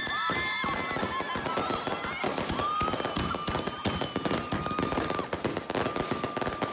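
Ground fountain firework spraying sparks and crackling rapidly and continuously. Over it run high held tones and excited voices.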